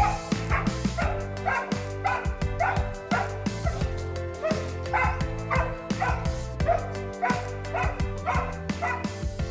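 A dog barking in short, excited yips, about two a second, as it greets its returning owner. Background music plays under it.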